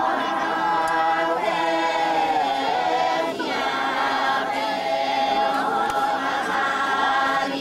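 A group of voices singing a tuki song unaccompanied, in long held phrases.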